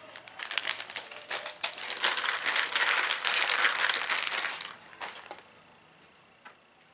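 Small 3D-printed plastic parts clicking together as they are handled and rummaged through, with crinkling packaging. It stops a little under five seconds in, followed by a couple of faint clicks.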